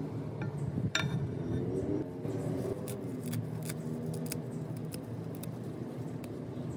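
Fresh mint leaves and stems being torn apart by hand over a bowl, a run of small crisp snaps and crackles, with one sharper clink near the start as a metal spatula touches the glass bowl. Soft background music runs underneath.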